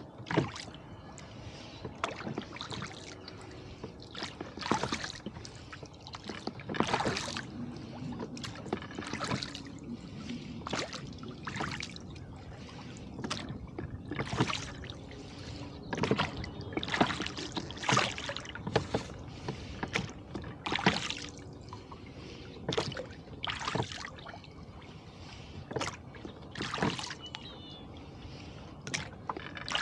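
Rowboat oars stroking through the water, each stroke a short splash, coming about every one to two seconds over a steady wash of water.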